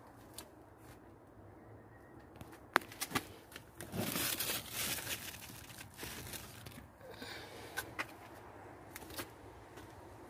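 Light rustling and handling noise with scattered sharp clicks, louder rustling for about a second and a half around four seconds in.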